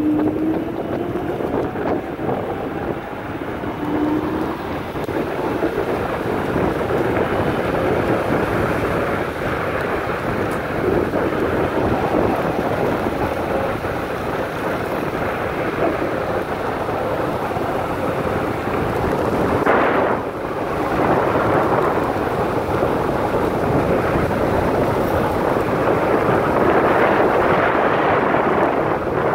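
Steady heavy wind noise buffeting the microphone of a moving electric scooter, with a faint rising whine in the first few seconds.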